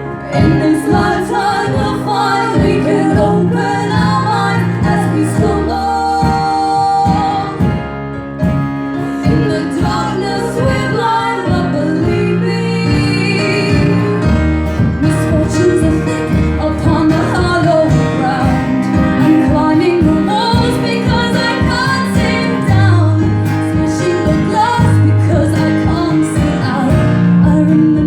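Live song: singing over guitar accompaniment with a steady beat.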